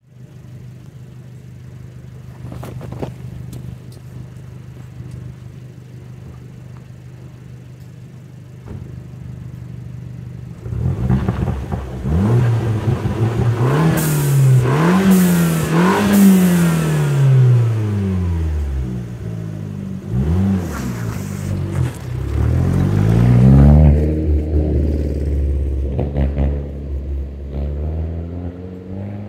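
Fiat 500 Turbo's 1.4-litre turbocharged four-cylinder through an aftermarket Madness exhaust and BMC intake. It runs steadily for the first third, then revs hard up and down several times as the car drives past, with short sharp hisses from its Forge blow-off valve between revs. It fades near the end.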